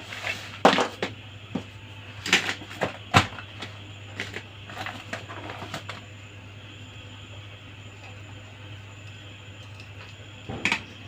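Small plastic toy pieces being handled, with a string of sharp clicks and knocks in the first few seconds, a quiet stretch, then a few more clicks near the end.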